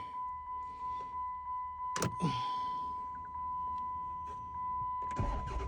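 A 2007 Chrysler 300's dashboard warning chime rings in repeated high dings. A sharp click comes about two seconds in, and near the end the engine cranks and starts on the newly programmed key.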